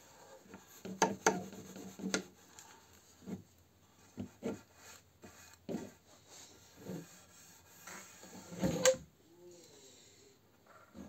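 Abrasive sponge applicator pad on a green handle rubbing along a walnut board's surface in separate strokes, spreading oil. Some strokes are sharper than others, and the loudest comes about nine seconds in.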